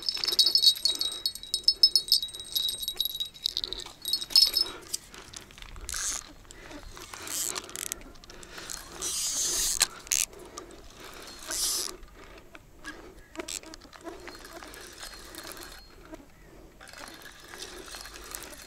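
Fishing tackle giving a fast, finely ticking metallic whir for about four seconds. Several short rushes of noise follow.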